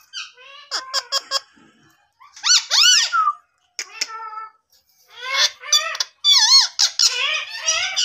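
Indian ringneck parakeet calling: a few sharp short squeaks about a second in, a pair of loud arching screeches around three seconds in, then a fast run of warbling, chattering calls through the last three seconds.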